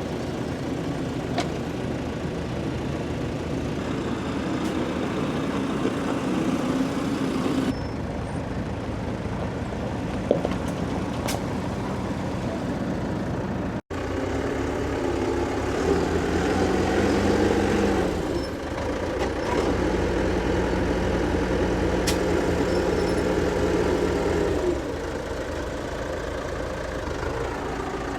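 Tractor engine running steadily, its pitch shifting a few times as it works, with a brief cut in the sound about fourteen seconds in.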